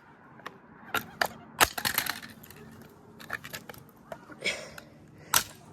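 A bent speaker driver's metal frame being forced back into shape: irregular sharp cracks and clicks, the loudest about a second and a half in and another near the end.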